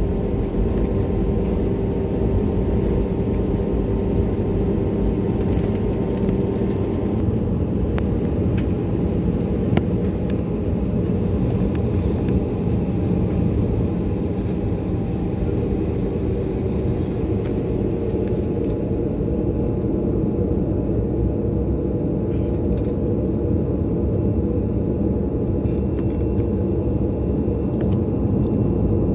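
Airliner cabin noise during takeoff: the engines and airflow make a steady low rumble heard from inside the cabin, with a steady hum in it that stops about seven seconds in.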